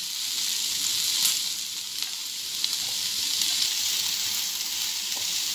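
Chopped onions sizzling in hot sunflower oil in a black wok, the start of sautéing them soft, stirred with a slotted spatula. A steady hiss runs throughout, with a few faint clicks.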